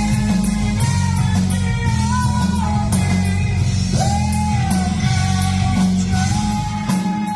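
Heavy rock band playing live: electric guitar, bass and drums, with a sustained lead melody line that slides between held notes.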